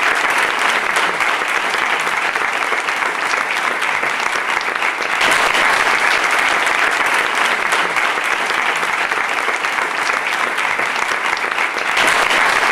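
A room full of people applauding: sustained clapping from many hands, steady throughout.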